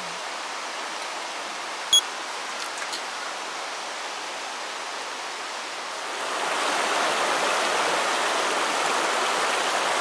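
Shallow river water rushing steadily over rocks in rapids, getting louder about six and a half seconds in. A brief high ping about two seconds in.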